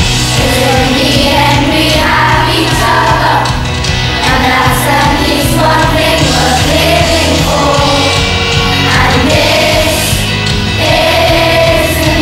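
A group of children singing a pop song along with a loud backing track that has a steady bass and drum beat.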